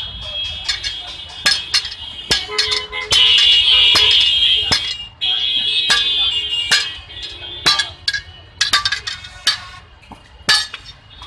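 Two blacksmiths alternately hammering a steel boti blade on an iron anvil, a hand hammer and a sledgehammer. Each blow is a sharp metallic clang that rings on, in an uneven run of strikes with a longer stretch of ringing a few seconds in.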